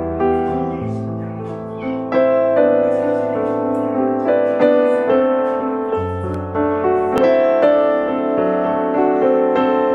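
Background piano music: a gentle melody over sustained bass notes.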